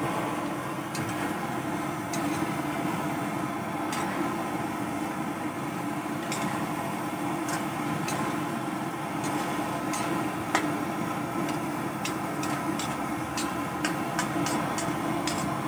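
Metal spatula tapping and scraping against an aluminium wok as chicken pieces are stirred in broth, a scatter of sharp clicks that comes thicker near the end. A steady hum runs underneath.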